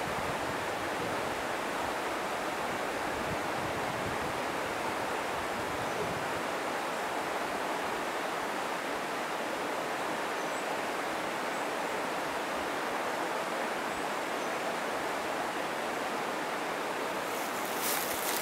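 Water of a mountain stream, the Nippara River, rushing steadily over rocks, with no change in its sound. The noise grows briefly louder and brighter in the last second.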